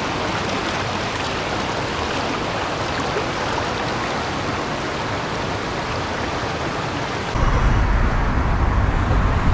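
Steady rushing of falling water, a waterfall or stream. About seven seconds in it cuts off abruptly and a louder, low rumble takes over.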